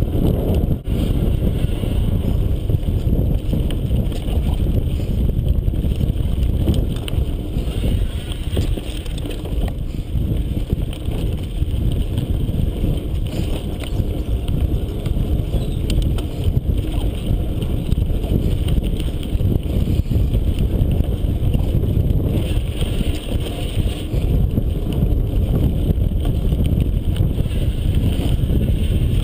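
Mountain bike riding fast over a dirt and sandy forest trail: steady wind buffeting on the microphone mixed with the rumble of knobby tyres on the ground, with a few small clicks and knocks from the bike over bumps.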